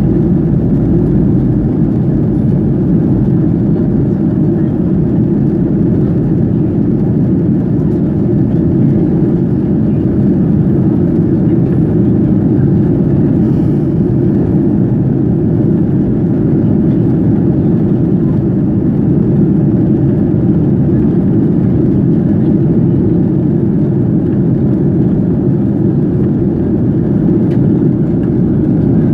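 Steady, deep rush of cabin noise inside a Boeing 737 on descent: jet engine and airflow noise heard from a window seat over the wing.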